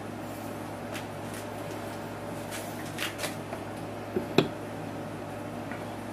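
A hand handling a surface-grinder wheel on its steel arbor as it sits on a balancing frame: a few soft clicks, then a sharper knock a little past four seconds in, over a steady low hum.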